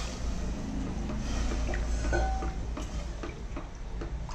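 Water poured into an aluminium pressure cooker of rice and dal, then a wooden spatula stirring the watery mix and knocking lightly against the pot, with a steady low hum underneath.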